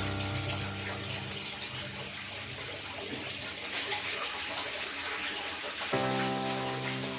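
Beaten egg frying in hot oil in a pan: a steady sizzle. Background music with sustained notes plays at the start and comes back about six seconds in.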